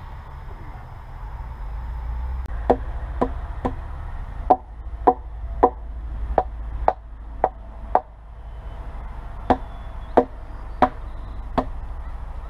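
About fourteen hard knocks on wood, roughly two a second with a short pause after the tenth, each with a brief hollow ring, as a wooden brace pole is hammered up into its notch under a log platform.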